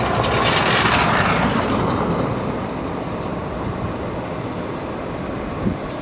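A road vehicle passing close by: tyre and engine noise swells to a peak about a second in, then fades away over a steady low rumble. A single short knock comes near the end.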